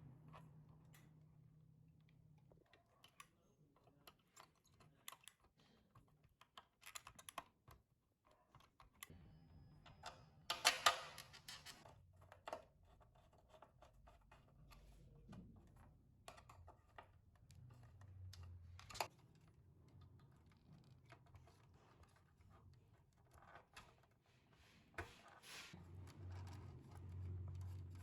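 Faint, irregular small clicks and taps of tools and parts being handled, with a louder scraping rustle about ten seconds in.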